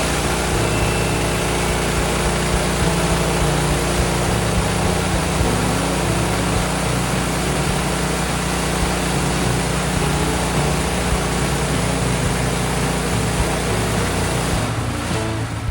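Gas-engine portable band sawmill running steadily while its blade cuts through a white oak log, engine hum under a dense hiss of sawing. The sound drops away about a second before the end.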